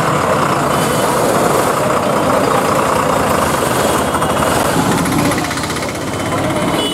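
Diesel bus engines running close by, a loud steady drone, with a brief fast rattle about four seconds in.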